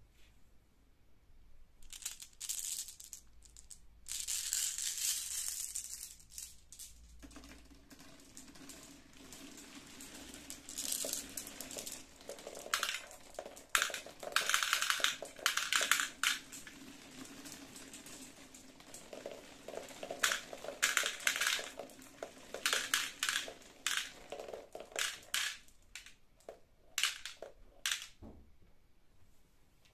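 Marbles rolling down a corrugated-cardboard spiral track with a steady rolling hum, clicking and clattering against one another as they drop through a cardboard bowl into a plastic toy dump truck. The hum stops about 25 seconds in, leaving scattered clicks of the last marbles landing.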